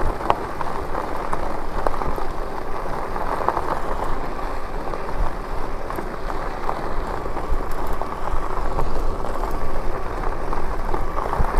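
Wind buffeting a GoPro Hero 8 Black's microphone on a moving e-bike: a steady rushing noise with a heavy low rumble and a few faint ticks.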